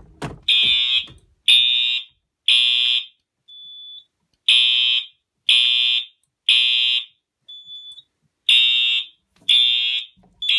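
Wheelock fire alarm horn sounding the temporal code-3 evacuation pattern: three half-second blasts a second apart, a pause, then the group again, three rounds in all. A click comes right at the start, and a faint short beep sounds in each pause.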